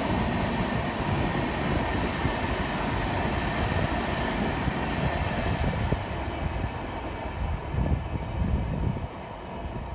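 A passenger train's coaches running on the rails, a steady rumble of wheels and bogies that slowly fades in the second half as the last coach pulls away.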